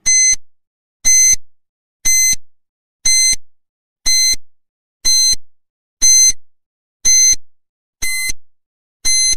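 Countdown timer sound effect beeping once a second, ten short high-pitched beeps that each fade quickly, marking off a ten-second answer time.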